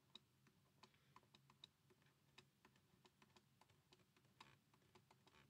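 Near silence, with faint, irregular clicks of a stylus tapping on a tablet as it writes, several a second.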